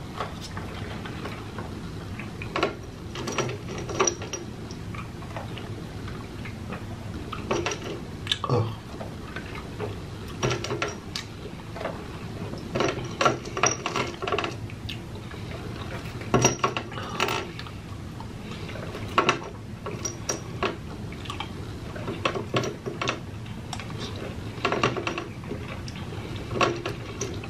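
Close-miked sounds of taking pills and drinking: scattered mouth clicks, swallows and straw sips, with small taps of cups and containers on the table, over a low steady hum.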